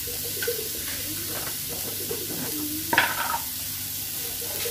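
Grated coconut heating in a non-stick pan, with a steady faint sizzling hiss, and a short clatter about three seconds in.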